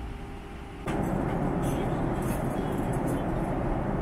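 Steady in-flight cabin roar of a Boeing 777-300 airliner. It steps abruptly louder about a second in, and light high clicks and clinks sound over it.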